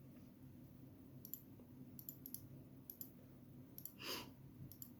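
Faint, scattered light clicks of keys being tapped while a multiplication is worked out, about a dozen in all, over a low steady room hum. There is a short hiss about four seconds in.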